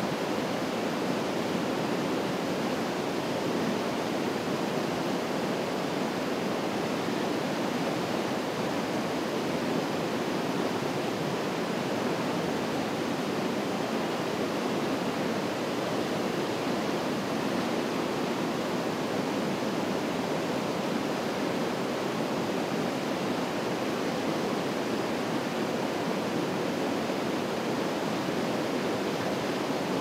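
A tall waterfall and a rocky mountain stream cascading over boulders, rushing steadily in an even, unbroken hiss of falling water.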